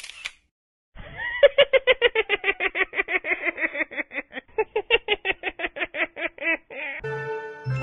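A Minion's high-pitched cartoon laugh: a long, rapid run of 'ha' syllables at about five a second, slowly falling in pitch. Music comes in near the end.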